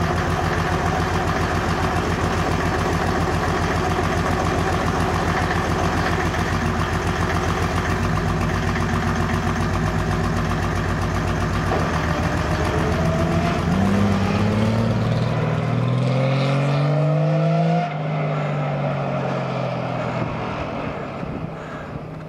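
Mercedes OM606 straight-six turbo diesel in a mini-puller, idling steadily with an even pulse. After about 13 seconds it rises in pitch over several seconds. After a sudden drop in level the engine pitch falls away and the sound fades.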